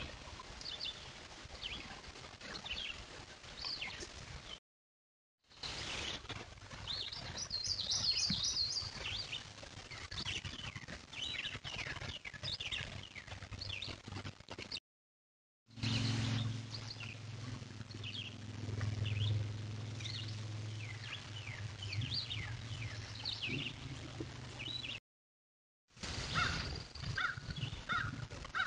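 Woodland birds chirping and singing: many short chirps and whistles from several birds, broken twice by brief silent cuts. In the middle stretch a steady low hum runs beneath the birdsong.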